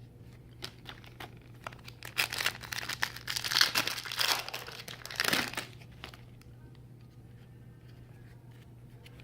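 The wrapper of a Panini Donruss Racing 2017 trading-card pack being torn open and crinkled: a burst of crackling that starts about two seconds in and stops a little after five seconds.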